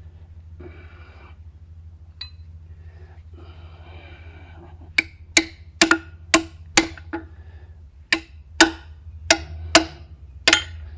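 Soft rustling, then about a dozen sharp knocks with a short ring, roughly two a second, starting about halfway through. They are the sound of tapping a new rear axle seal into its housing on a Ford 9N tractor.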